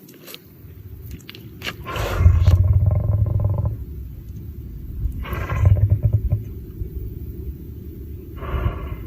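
Lion sneezing and snorting: three loud, sudden bursts about three seconds apart, the first and loudest about two seconds in, each followed by a low rumbling growl.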